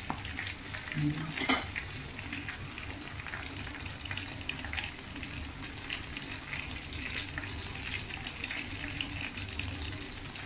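Milkfish (bangus) fillets deep-frying in a pan of foaming hot oil: a steady sizzle with a constant crackle of small pops, the fish close to done. One brief louder knock comes about a second and a half in.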